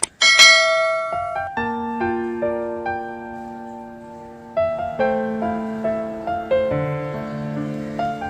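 Background piano music: a short click and a bright bell-like chime at the start, then a slow run of single piano notes over held lower notes.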